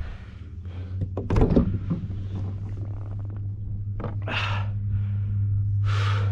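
Old Town Predator PDL pedal drive running as the kayak gets under way: a steady low hum that slowly grows louder, with a few knocks about a second in and two short airy rushes near the end.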